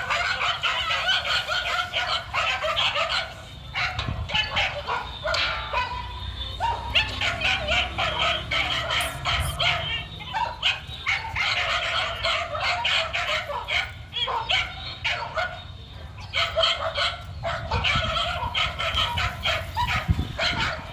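Dog barking repeatedly in fast runs of short, high barks and yips, with brief pauses in between.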